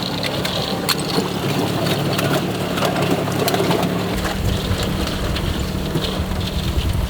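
Engine of a track-equipped Polaris Ranger UTV running as it is driven through ice, with scattered sharp cracks and knocks over the engine. The engine note gets deeper and fuller about four seconds in.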